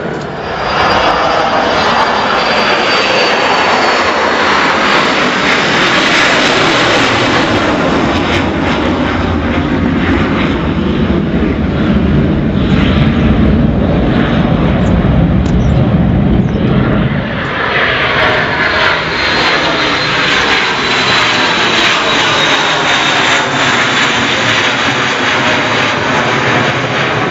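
Jet aircraft engines at climb power during take-off: a loud, continuous rush with a deep rumble. About 17 seconds in the sound dips briefly and turns brighter, and a high whine slowly falls in pitch as the jet passes overhead.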